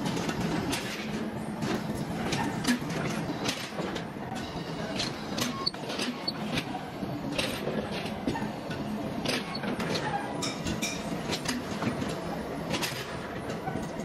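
Metalworking machinery running with a steady rumble, overlaid by irregular metallic clicks and clatter several times a second.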